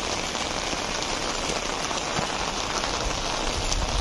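Steady rain falling on an open umbrella and on the wet pavement.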